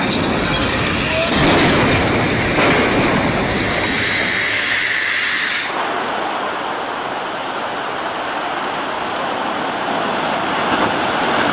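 Heavy vehicle noise with two knocks in its first few seconds. It cuts off suddenly a little past halfway, and steady ocean surf washing over rocks follows.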